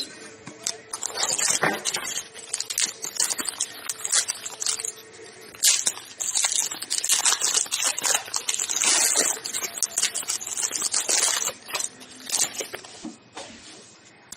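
Trading card pack wrapper being torn open and crinkled, with cards being handled, in dense irregular crackling bursts that die away near the end.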